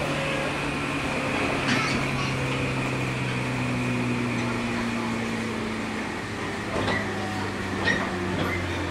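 On-board running sound of a JR 103 series electric train: the MT55 traction motor and gear whine slowly falls in pitch as the train slows, over steady rolling noise, with two short knocks from the running gear.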